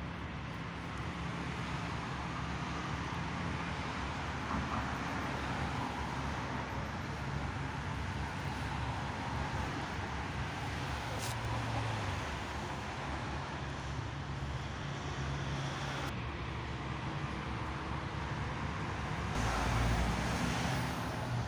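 Road traffic noise: a steady wash of vehicle sound with a low engine hum, growing louder near the end.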